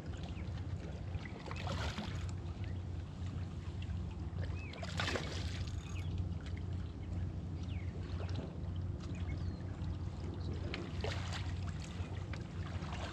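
River water sloshing and splashing against shoreline rocks as a hooked striped bass is worked to a landing net, with a few sharper splashes, over a steady low rumble.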